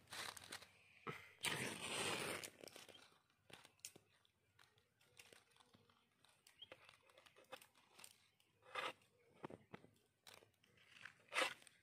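Dry leaves rustling and crunching as a hand piles and pokes them, in irregular bursts with small clicks. The loudest crackle comes about two seconds in.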